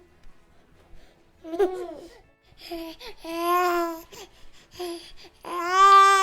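Baby cooing: a short coo about one and a half seconds in, then two long drawn-out vowel coos, the second starting near the end.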